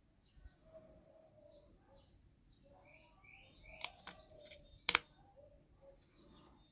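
Small birds chirping repeatedly with short rising calls. A few sharp clicks about four seconds in, and a louder one near five seconds, stand out above them.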